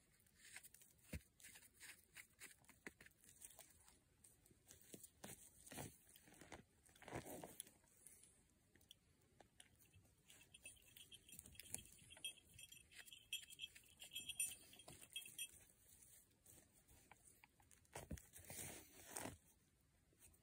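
Faint scratching, crunching and rustling of hands digging through dry forest duff and soil around matsutake mushrooms, in short irregular scrapes.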